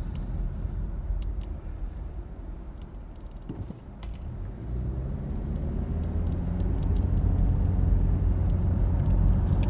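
Car engine and tyre noise heard from inside the cabin while driving on a snow-covered road. The rumble eases off as the car slows for a red light, then builds again from about halfway through as the engine pulls the car away and accelerates.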